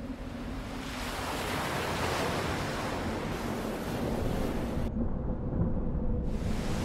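Steady rushing ambience of wind and surf, with a low steady hum beneath it. The hiss cuts out suddenly about five seconds in and comes back a little over a second later.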